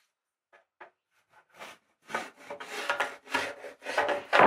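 Pencil scratching along a thin wooden batten on a timber board while marking a line. A few light taps come first, then from about two seconds in a run of scratchy rubbing strokes on wood that grow louder toward the end.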